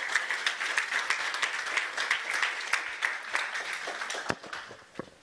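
Audience applauding: many hands clapping at once, thinning out and dying away over the last second or so.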